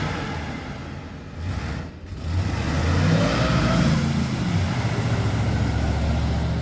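Ford F-150 pickup's engine revving as the truck drives out of a deep mud hole, its tires churning through mud and water. The engine eases off briefly about two seconds in, then is held at steady high revs.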